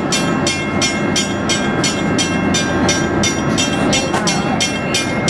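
Morrison Bridge's bascule leaf rising: the drive machinery runs with a steady low rumble and a regular clacking a little over twice a second.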